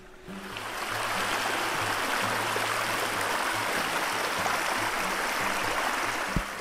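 Creek water rushing over rocks in a small riffle: a steady rush that fades in over the first second and cuts off abruptly at the end.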